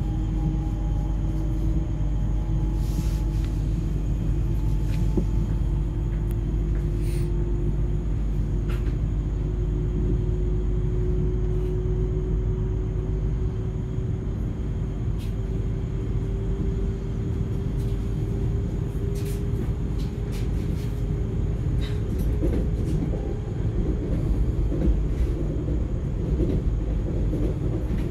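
Inside the carriage of an ES2G Lastochka electric train on the move: a steady low rumble of wheels on rail, with a hum slowly rising in pitch and a scattered few clicks of the wheels over rail joints.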